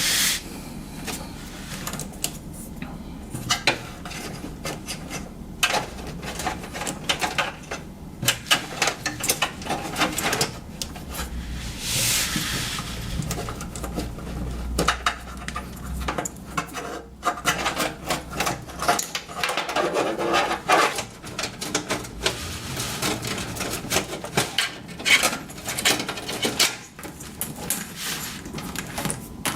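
Hands working inside a desktop PC case, fitting and routing SATA cables: a run of irregular clicks, knocks and rubbing of plastic and metal parts, with a longer rustling swish about 12 seconds in.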